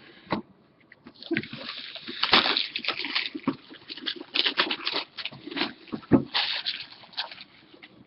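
Packaging being handled and torn open on a sealed trading-card box: irregular crinkling and tearing, with a few sharp knocks, the loudest about six seconds in.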